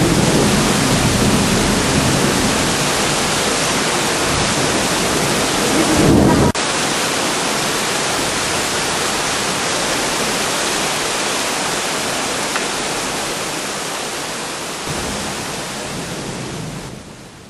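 A steady, dense hiss like heavy rain. A lower rumble under it cuts off abruptly about six and a half seconds in, and the hiss fades out at the very end.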